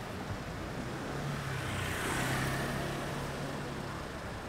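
A car passing by: its noise swells to a peak about two seconds in and then fades, over a steady low engine hum.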